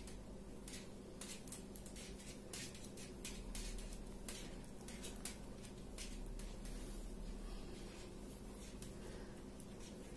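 Knitting needles clicking and scraping lightly and irregularly, two or three clicks a second, as stitches are purled, over a faint steady hum.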